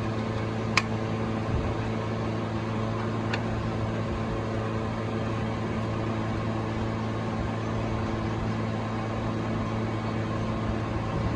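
A steady mechanical hum that holds several constant pitches, with a sharp click about a second in and a fainter click about three seconds in.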